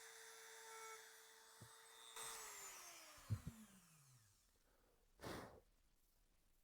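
Small rotary tool running with a faint steady whine after drilling out an air bubble in cured resin, switched off about two seconds in, its pitch falling as it spins down over about two seconds. A faint tick or two and a short soft puff of noise follow near the end.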